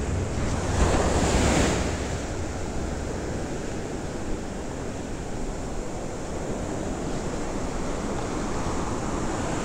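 Ocean surf breaking and washing up a sandy beach, with wind buffeting the microphone. The wash swells louder for a moment about a second in, then settles to a steady rush.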